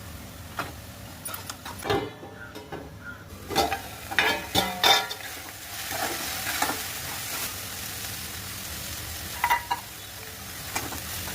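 Food sizzling in oil in a pan while a spoon stirs it, clinking and scraping against the pan several times.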